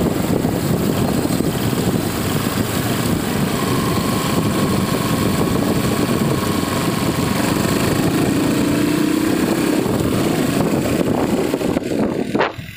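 Motorcycle engine running as the bike rides along, mixed with steady wind rushing over the phone's microphone. Near the end the sound drops suddenly, with a knock as the phone is handled.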